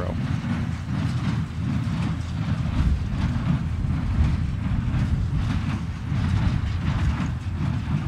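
John Deere 1025R subcompact tractor's three-cylinder diesel running under load while driving a John Deere 327 small square baler, with the baler's mechanism clattering steadily over the low engine drone.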